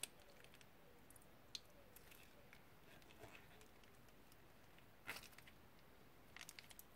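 Faint, scattered crinkles and clicks of a plastic piping bag being squeezed out and crumpled by hand. The louder crackles come about five seconds in and again near the end.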